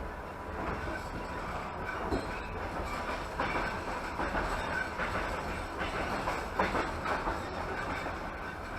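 Passenger train carriage running along the track, heard from inside the coach: a steady rumble with wheels clattering over the rails, the clatter busiest in the middle.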